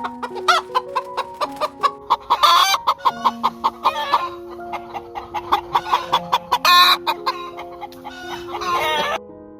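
Chickens clucking rapidly, with three louder, drawn-out squawks, over soft piano music. The clucking stops abruptly shortly before the end.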